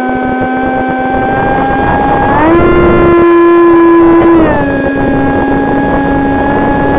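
AR900 flying wing's electric motor and propeller whining steadily, picked up by the onboard camera, with wind noise rushing underneath. The pitch steps up about two and a half seconds in, holds for about two seconds, then drops back to the lower whine.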